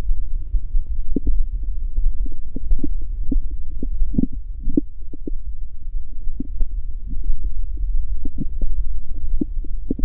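Stomach growling: a steady low rumble with many short gurgles and pops scattered throughout.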